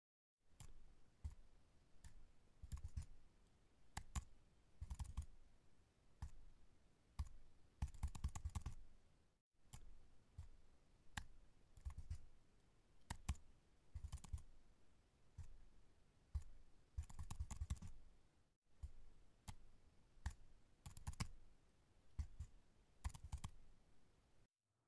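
Faint computer mouse clicking and scroll-wheel ticking in irregular bursts.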